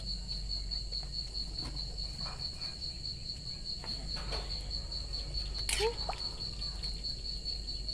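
A cricket trilling steadily, one high, rapidly pulsing note, over a low steady rumble. A brief sharp sound cuts in about three-quarters of the way through.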